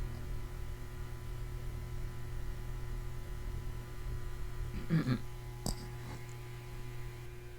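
Steady electrical mains hum picked up by the recording, with a short pitched sound about five seconds in and a sharp click just after it.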